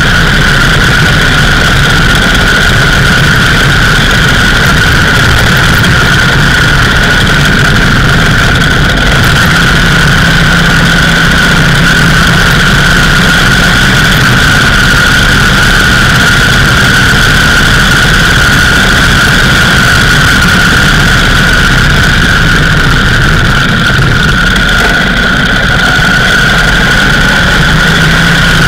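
Indian Scout 101 motorcycle's V-twin engine running steadily under way, heard from a bike-mounted camera, with a steady high whine running through it and loud road and wind rush.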